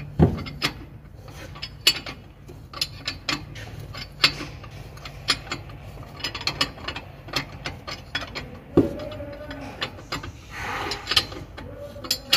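Irregular metallic clicks and clinks of a wrench working the nut on a truck air spring's lower mount, with a few heavier knocks, over a steady low hum.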